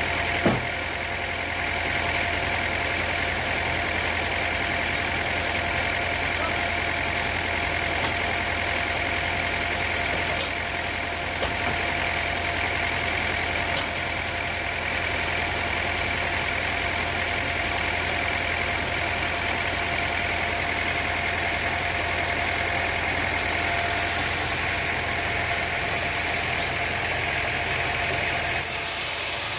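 Sawmill machinery running steadily, a constant engine-like drone with a steady whine, and a single sharp knock about half a second in.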